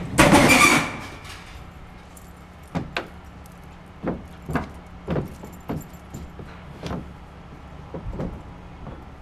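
A heavy metal vending machine cabinet tips over with a loud clattering metal crash lasting about half a second. Scattered knocks and scuffs follow as it is handled.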